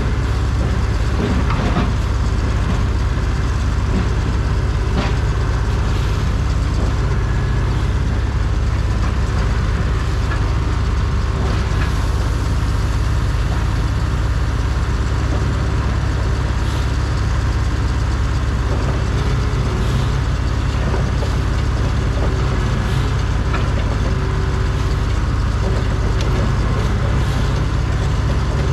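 Caterpillar D6 bulldozer's diesel engine running steadily at low revs, with a few faint knocks over it.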